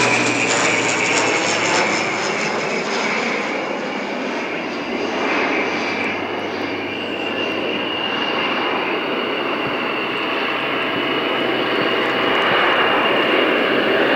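Fixed-wing aircraft engine running loud overhead, a dense steady roar with a high whine; its tones drop in pitch in the first couple of seconds as it passes.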